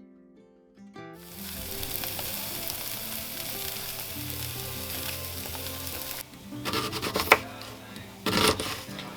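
Food sizzling in a hot frying pan over quiet background music. The sizzle starts about a second in and cuts off suddenly about six seconds in, followed by a few short, louder clattering noises.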